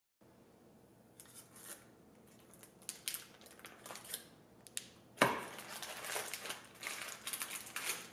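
Parchment paper crinkling and rustling as a metal cake pan is handled on a wooden board, with scattered light clicks and one sharp knock about five seconds in, followed by denser crinkling.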